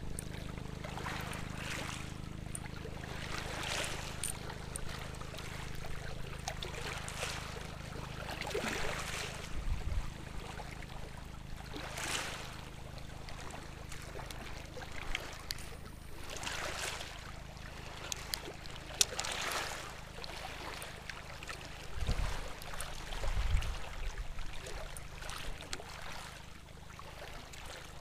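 Small sea waves washing in every few seconds, over a steady low hum.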